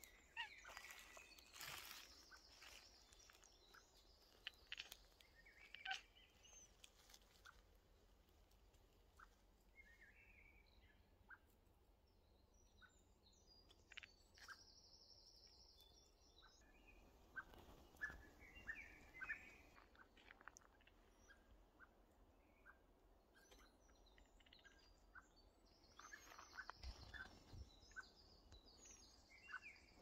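Faint, scattered short chirps and chattering from a Maine Coon cat chirping at a bird, with birds calling in the trees. The chirps come in small clusters with gaps between them.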